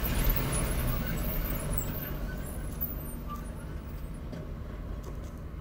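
Steady low rumble of a car's engine and road noise heard inside the cabin, with a few faint clicks near the end.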